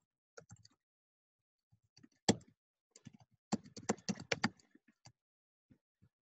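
Computer keyboard typing in short, irregular runs of key clicks, with one sharper keystroke about two seconds in and a quick flurry a little later.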